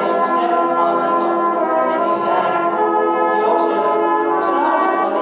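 Brass band of cornets, baritones and tubas playing slow, sustained chords.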